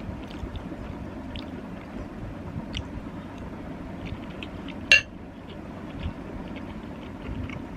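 Spoon clicking and scraping in a bowl of soup while eating, with one sharp ringing clink of the spoon against the bowl about five seconds in, over a steady low hum.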